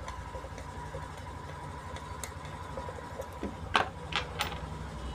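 Faint small clicks of a screwdriver tightening the control nuts on a bass-tube amplifier's metal panel, over a steady low hum. A couple of sharper clicks come near the end as the screwdriver is set down on a wooden bench.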